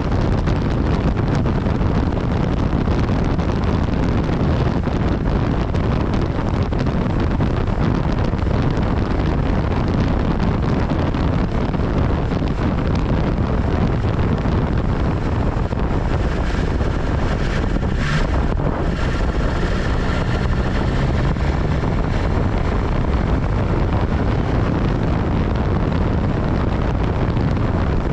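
Steady wind rush on the microphone of a motorcycle riding at speed, with the bike's engine noise underneath. A short sharp sound comes about two-thirds of the way through.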